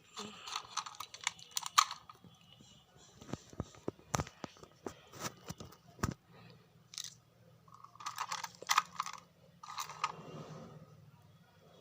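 Plastic clicks, taps and rattling as AA batteries are fitted into a toy excavator's battery compartment by hand, in irregular bursts.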